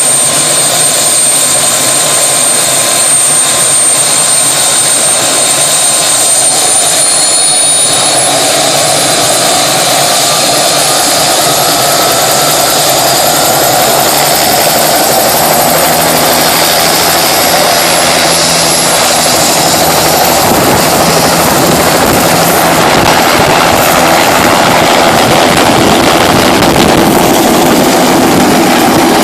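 Helicopter running loudly, a steady noise with a thin high turbine whine that steps up in pitch about a quarter of the way in and again about two-thirds through.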